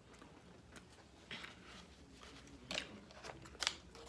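Faint close-up chewing, with a few short crisp crunches of food being bitten.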